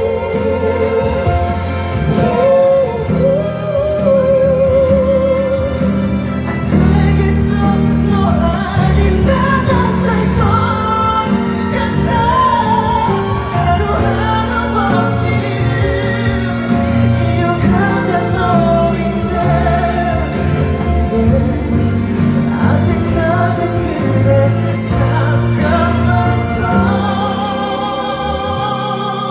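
Live pop ballad: a male singer holds long notes with vibrato over a band accompaniment.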